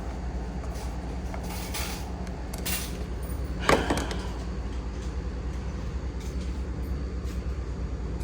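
A steady low mechanical hum, like an idling engine or machinery, with a few short scrapes and knocks about two, three and four seconds in; the last is the loudest and has a brief squeak.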